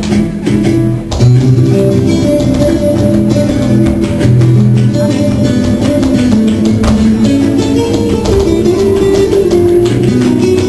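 Flamenco guitar music, with acoustic guitar plucked and strummed, playing loud and steady.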